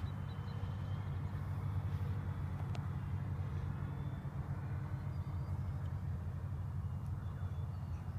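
A steady low rumble dominates, under the faint, distant sound of an electric ducted-fan model jet on its landing approach.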